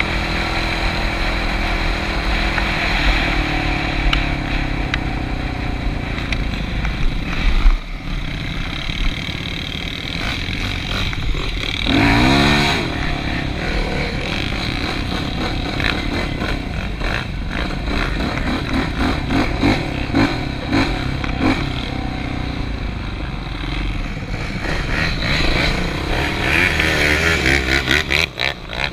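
ATV engine running as it is ridden, its pitch rising and falling with the throttle, with a sharp thump about eight seconds in and a louder quick rev around the middle. Short clattering knocks run through it.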